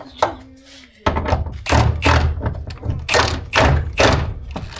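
A rapid run of heavy thuds and knocks, several a second, starting about a second in.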